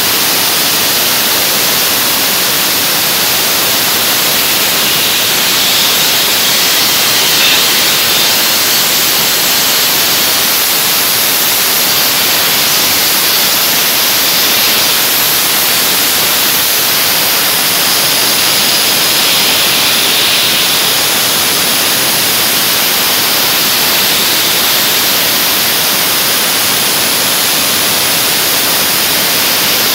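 Dry ice blasting gun giving a loud, steady hiss of compressed air and dry ice while it blasts limescale off machine parts.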